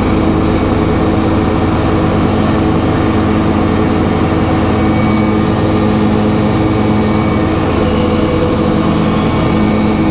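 Sawmill running steadily through a cut in a log: a continuous, loud machine drone with a steady hum that does not change in pitch.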